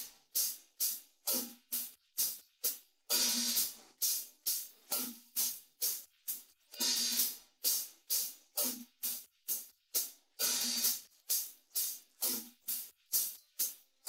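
Isolated cymbal track of a rock drum recording: short, bright cymbal strokes in a steady rhythm about two a second, with a longer ringing wash about every four seconds.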